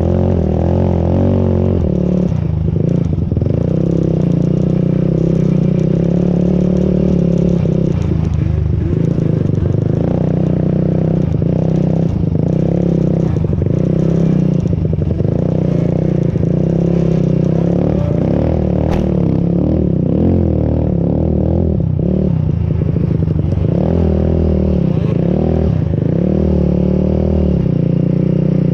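Sport quad's engine running hard on sand dunes, close to the on-board camera, its pitch rising and falling over and over as the throttle is opened and eased off.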